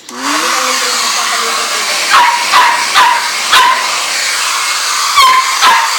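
Small dog, a Chihuahua, barking in sharp yaps: four about half a second apart from about two seconds in, then two more near the end, over a steady loud hiss that starts suddenly at the outset.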